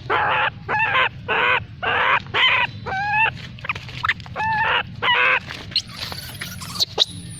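A string of short, pitched animal calls, about two a second, over a steady low hum.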